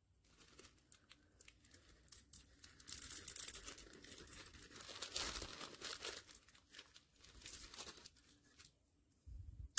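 Crinkling and rustling of thin clear plastic wrapping and foil confetti as a small plastic shaker toy is opened and its bagged fill is handled. The sound comes in irregular crackles, loudest about three seconds in and again about five seconds in.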